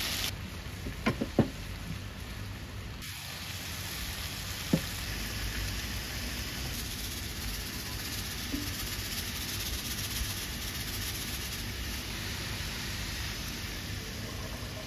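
Steady sizzling hiss of julienned carrots cooking in oil in a kazan, the carrot stage of plov. Three sharp clicks come close together about a second in, and one more near five seconds.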